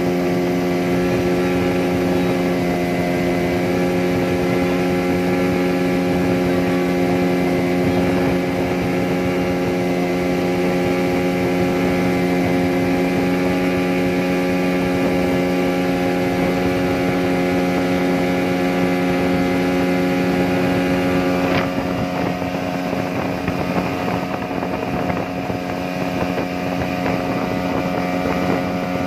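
A fully loaded speedboat's engine runs at a steady pitch at speed, with wind and water rushing past. A sharp click comes about two-thirds of the way through, after which the engine note is a little less prominent.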